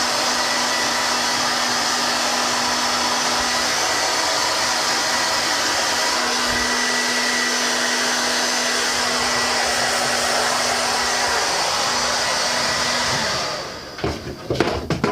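Handheld hair dryer blowing steadily, a rushing of air over a faint motor hum and whine. It switches off about 13 seconds in, followed by a few knocks as it is handled.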